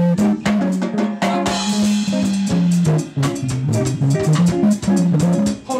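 Live band playing an instrumental passage: an electric bass line moving under a drum kit keeping steady time, with guitar. A cymbal wash rings out about a second and a half in.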